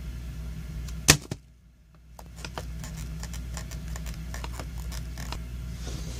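A steady low hum, broken by one sharp click about a second in and a brief drop-out, followed by a run of small light clicks and taps.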